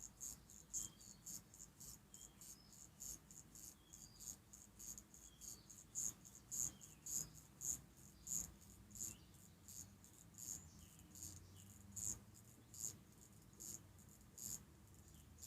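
Poljot Signal mechanical alarm watch's upper crown being wound to tension the alarm spring. Its ratchet gives faint, sharp clicks at about two a second.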